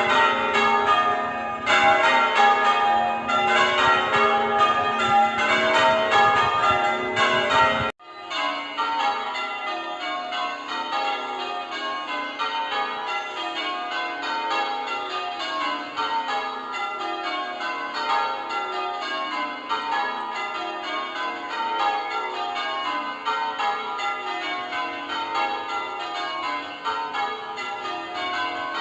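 Church bells being rung in changes, a quick, continuous run of strikes stepping up and down in pitch. About eight seconds in the sound cuts off abruptly and comes back at once, quieter.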